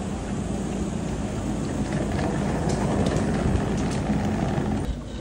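Motor vehicle engine running steadily with a low rumble, a little louder past the middle, cutting off abruptly shortly before the end.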